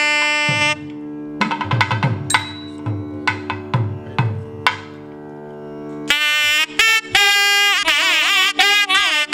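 South Indian temple music of nadaswaram and thavil over a steady drone: a held nadaswaram note breaks off shortly in, a run of thavil drum strokes follows, and about six seconds in the nadaswaram returns with a wavering, ornamented melody.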